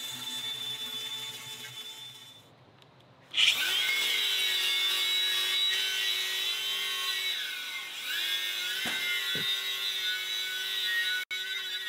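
Cordless angle grinder fitted with a wire brush, scouring rust and old paint off a steel wagon wheel rim. After a stretch of grinding fades out, the grinder starts suddenly about three seconds in and settles into a steady whine that sags for a moment under load a few seconds later, with a couple of sharp knocks near the end.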